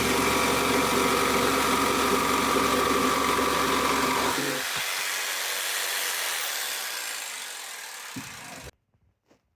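Electric jigsaw with a fine-toothed aluminium-cutting blade running in wood, a steady motor whine. About four and a half seconds in the low part of the sound drops away and the rest fades out, leaving near silence with a few faint clicks near the end.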